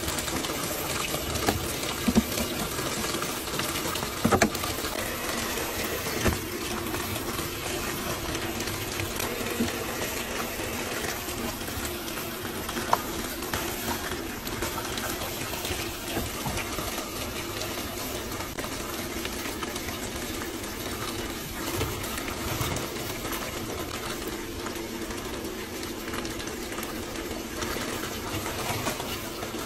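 Top-loading washing machine filling: water pours from the dispenser into the tub in a steady rush, with a faint steady hum. A few short knocks come in the first half.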